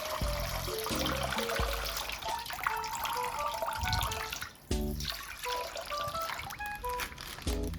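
Water trickling and splashing as a water-filled plastic mystery bag is opened and emptied, under a light music track.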